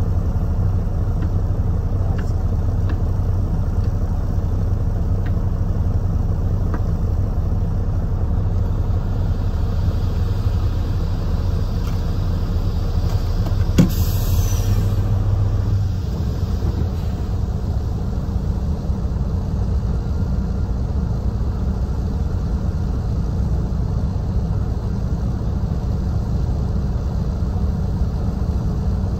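Heavy tipper truck's diesel engine running steadily while parked, kept running as the load of sand is tipped out. About halfway through there is a single sharp click with a short hiss, and the engine's low hum drops a little a couple of seconds later.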